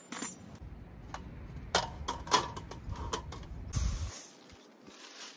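Metal folding table frame clacking and knocking as it is opened out and set down: a string of sharp clicks over a low rumble for the first three seconds or so. About four seconds in the rumble stops and a brief soft hiss follows as rice is poured from a plastic bag into a pot.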